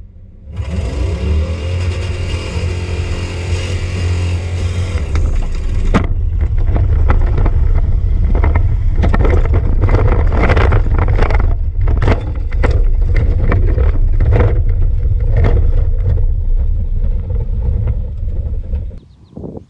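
Ford F250 Super Duty's gasoline V10 engine revving up and running hard under acceleration, heard from inside the cab. From about six seconds in, loud knocks and rattles come as the truck bounces over rough ground. The sound drops away sharply just before the end.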